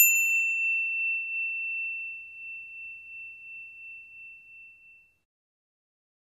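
A single struck bell-like chime: one high ringing tone that wavers in level as it dies away over about five seconds.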